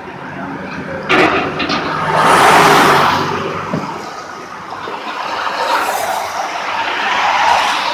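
Road traffic passing close by: one vehicle swells up and fades about two to three seconds in, and another builds near the end. A brief clatter of knocks comes about a second in.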